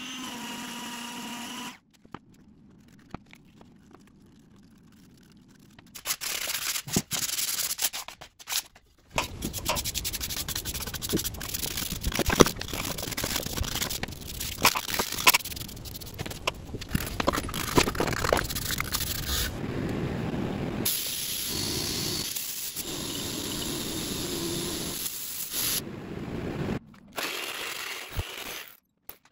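A quick-cut string of woodworking sounds, mostly sanding and rubbing on wood. It opens with a Makita palm sander's motor running steadily on the wooden disc, followed by stretches of scratchy abrasive rubbing that stop and start abruptly.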